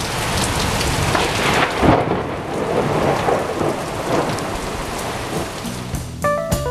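Steady downpour of heavy rain with a sharp thunderclap about two seconds in that rumbles on afterwards. Guitar-and-keyboard music comes back in near the end.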